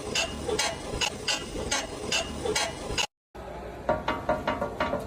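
Rhythmic mechanical ticking from a car, about four sharp clicks a second. After a brief cut about three seconds in, a second, differently patterned run of clicks begins.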